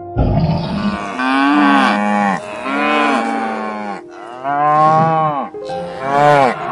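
Domestic cattle mooing: about four long moos one after another, each rising and then falling in pitch.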